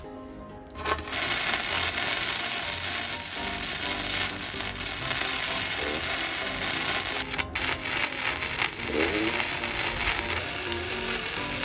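Gasless flux-core semi-automatic welder arc crackling and sizzling steadily as a bead is run on steel, starting about a second in. Background music plays under it.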